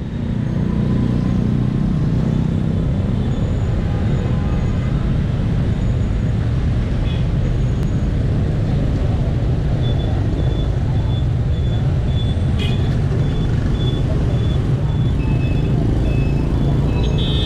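Steady, dense city street traffic, mostly motor scooter and car engines, with thin high-pitched tones coming and going in the last third.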